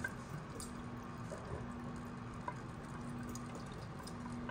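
A thin stream of water runs steadily from a kitchen faucet into the sink, with a faint steady hum underneath.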